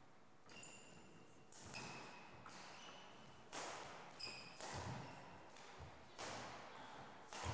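Badminton rally: rackets hit the shuttlecock about five times, roughly every second to second and a half, each hit a sharp crack with a short echo. Between the hits come brief high squeaks of shoes on the wooden court floor.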